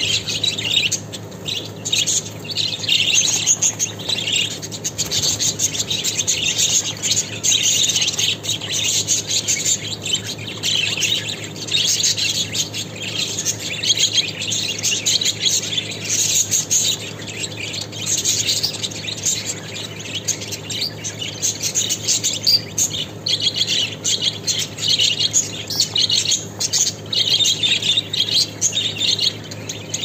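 A flock of budgerigars chattering without a break: many birds warbling and chirping over each other.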